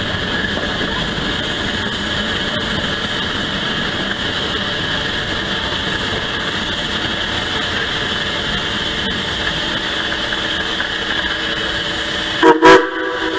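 Steam train running along the track with a steady rumble and clatter. Near the end the steam locomotive's whistle gives a short, loud toot.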